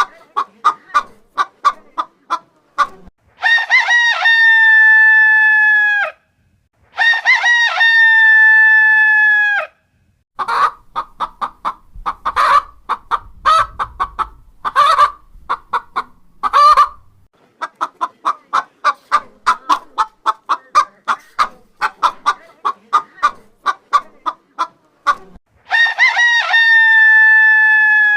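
Rooster crowing three times, each crow a long held call of about two and a half seconds, with runs of rapid chicken clucking in between.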